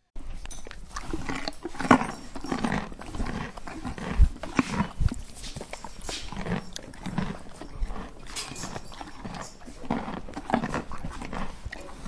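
Horses making a run of short, irregular animal noises, loudest about two and four seconds in.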